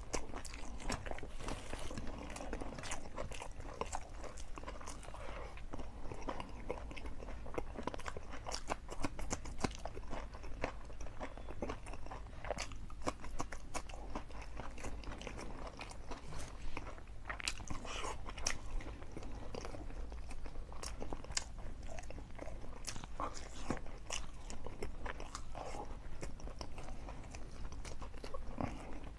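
A man chewing a mouthful of food close to the microphone, with many small sharp mouth clicks and smacks following one another throughout.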